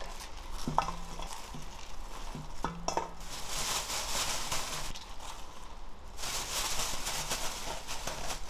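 Green chili peppers rustling and shifting in a plastic mesh bag as it is worked down into a stainless steel bowl of soy-sauce and anchovy-sauce marinade, a wet rustle in two long stretches with a few small clicks.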